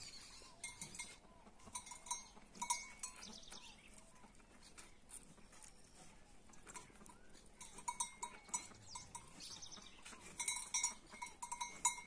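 Metal livestock bells clinking irregularly, busier toward the end, with a few high bird calls among them.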